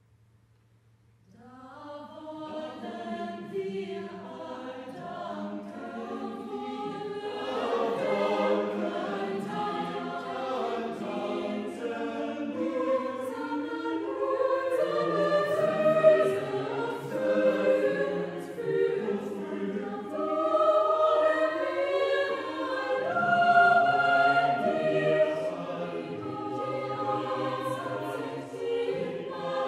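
Mixed choir of men's and women's voices singing unaccompanied. They enter softly after about a second and a half of silence and grow steadily fuller and louder.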